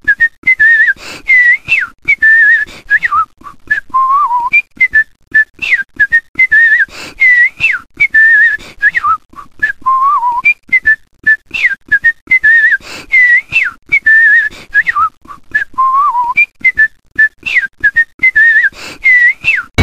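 A whistled tune: one loud, clear melody of short notes with quick slides up and down, its phrase coming round again about every six seconds, over sharp clicks.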